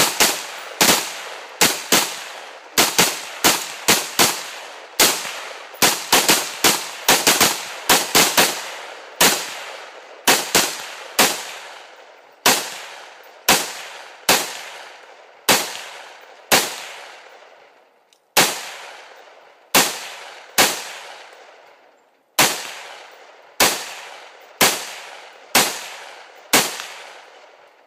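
AR-15 rifles fired semi-automatically: dozens of sharp shots, each with a trailing echo, coming fast and irregularly from several rifles at once in the first half, then single shots about once a second from one rifle.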